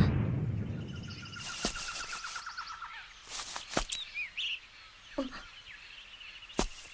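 The tail of a loud crash dies away, leaving forest ambience: birds trilling and chirping, with a few sharp clicks.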